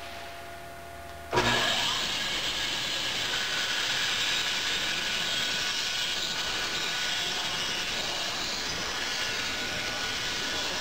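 Bandsaw switched on about a second in, its motor and blade then running steadily.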